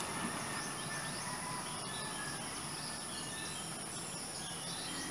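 Rural outdoor ambience: insects keep up a steady high-pitched drone, with short bird chirps here and there.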